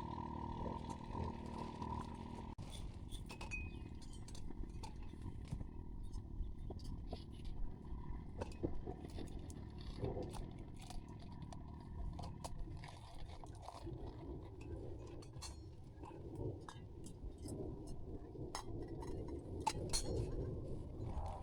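Scattered light clinks and taps of cookware being handled, over a low steady rumble. A steady hum cuts off suddenly about two and a half seconds in.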